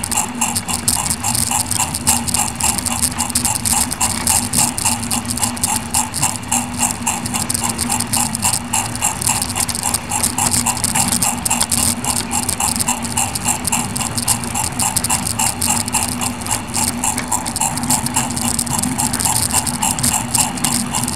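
Battery-powered LGB G-scale 0-4-0 Porter model locomotive running along garden railway track: a steady motor-and-gear hum with a fast, even ticking of the running gear and wheels.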